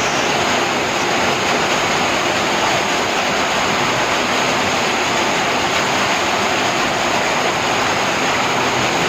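Loud, steady rush of heavy water during flooding rain, with no break or change.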